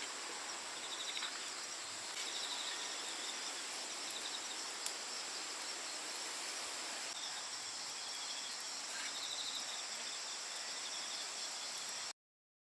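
Outdoor ambience of steady insect chirring, with several short pulsed trills and one sharp click; it cuts off abruptly near the end.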